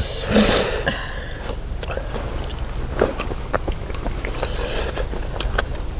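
A person chewing a mouthful of braised monkfish close to the microphone, with small scattered clicks of eating. A short breathy rush of noise comes about half a second in.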